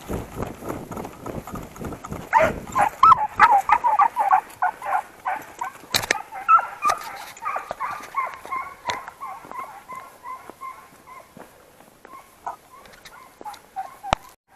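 Footsteps on dry ground for the first couple of seconds, then a Segugio Italiano scent hound giving tongue: a quick run of high, yelping barks, several a second, that fades away over several seconds and returns faintly near the end. This is a hound baying on a hare's trail.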